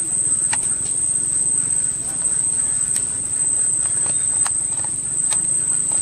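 Insects trilling in one steady, high-pitched note, with a few short sharp clicks scattered through.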